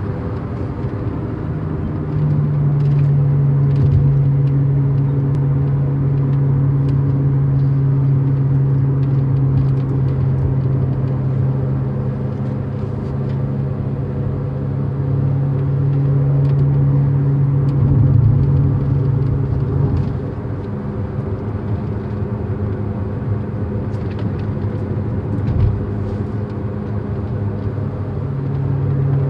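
A 2007 Chevy HHR making a steady low humming drone on the move. It grows stronger about two seconds in, eases off around twenty seconds and builds again near the end. The owner describes it as a grinding or humming noise that comes on when turning left and gets loud and worse around 40 mph.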